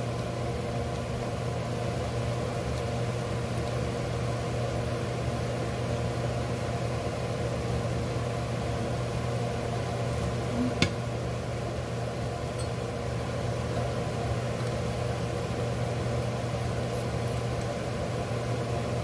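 A steady low mechanical hum, as from a motor running, with one sharp click about eleven seconds in.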